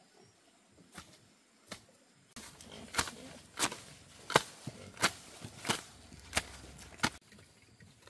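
A hand tool chopping with a steady rhythm: seven sharp, evenly spaced strikes, about one and a half a second, after two lighter knocks.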